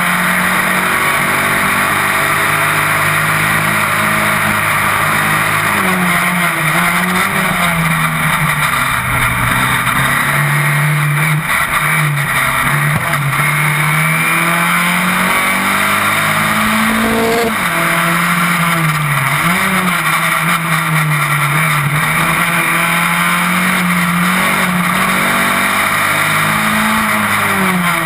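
Onboard sound of a single-seater racing car at race speed: the engine runs hard, its pitch rising through the revs and dropping sharply a few times at shifts or lifts for corners, over steady rushing wind noise on the car-mounted camera.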